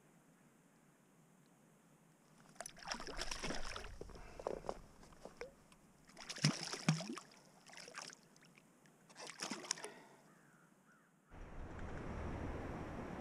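Water splashing and sloshing at the surface in irregular short bursts for several seconds. About eleven seconds in, a steady rushing noise starts abruptly.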